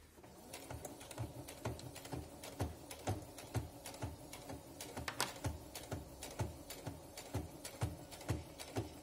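Brother FS40 computerized sewing machine stitching slowly, its needle mechanism knocking evenly about three times a second over the steady hum of the motor.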